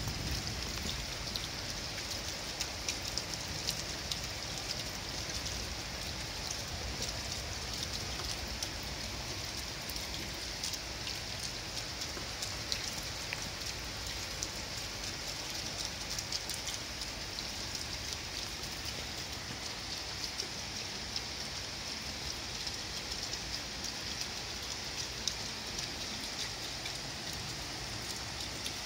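Steady rain falling on a flat roof with raised seams and on the surrounding garden trees: an even hiss with many small, close drop taps scattered through it.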